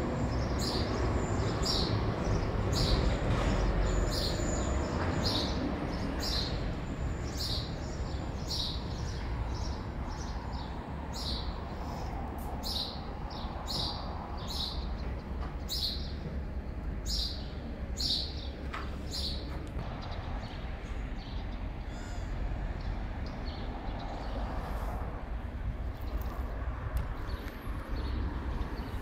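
A small bird chirping over and over, short high chirps about once or twice a second that thin out after about twenty seconds, over a steady low rumble.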